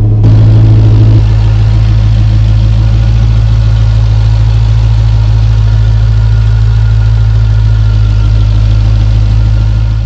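Dodge Challenger SRT Hellcat's supercharged 6.2-litre HEMI V8 idling with a deep, even hum, a little louder for the first second and then steady.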